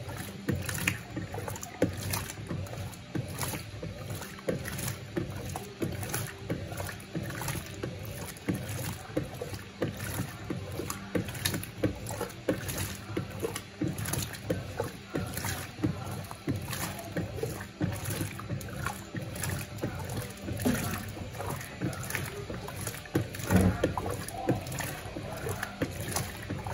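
Electrolux Turbo Compacta 7 kg (LTC07) washing machine agitating a load of rugs on a low water level: rhythmic churning and sloshing over a low motor hum, the initial agitation of its eco wash cycle.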